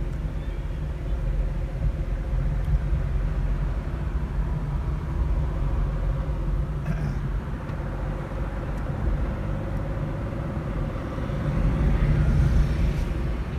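Car cabin noise while driving: a steady low rumble of engine and tyres on the road, with a faint steady whine above it.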